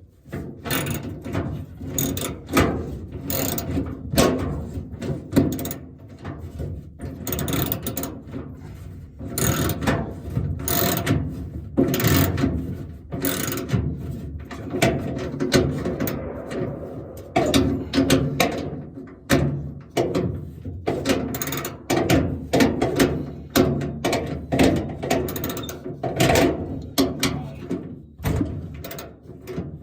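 Hand ratchet wrench clicking in quick runs of strokes with short pauses, as a 13 mm toolbox mounting bolt is turned.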